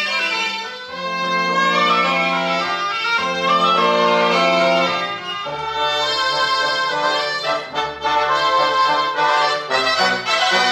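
Expanded Catalan cobla ensemble playing a harmonized, sustained melody with trumpets and trombone to the fore. A low bass line comes in about halfway through.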